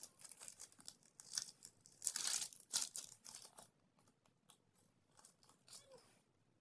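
Hands working a selfie stick: rustling, scraping and small clicks, with a dense noisy rasp about two seconds in, then only faint handling noise.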